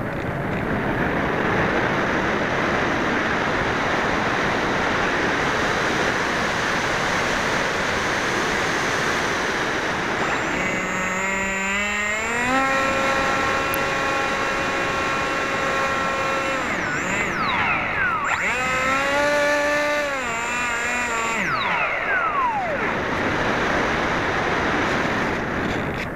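Airflow rushing past the onboard camera of a HobbyKing Bixler RC plane in flight. About ten seconds in, the electric pusher motor's whine rises in pitch, holds steady for several seconds and glides down, then comes back for a few seconds and falls away again as the throttle is opened and closed.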